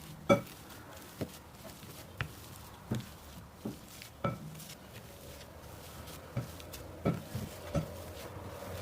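Light knocks and clinks of kitchen utensils against a hard surface, about one a second, during hand food preparation.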